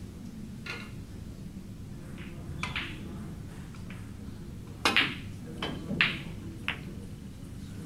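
Snooker cue tip striking the cue ball with a sharp click about five seconds in, then the cue ball clicking into a red almost at once. A few lighter knocks of balls follow over the next two seconds.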